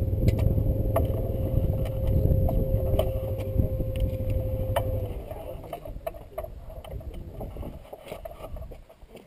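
A motor vehicle's engine running nearby with a low rumble and a steady hum; about halfway through the hum dips slightly in pitch and the engine noise fades away, leaving faint scattered clicks.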